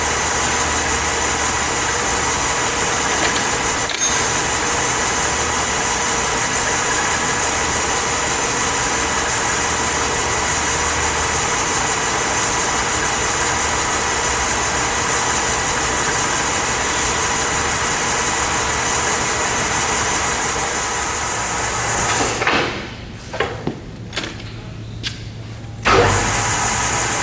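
Enco LG2080DS engine lathe running steadily, a constant machine hum with faint steady tones. About 22 seconds in it dies away, leaving a few clicks. Near the end it comes back suddenly with a thump.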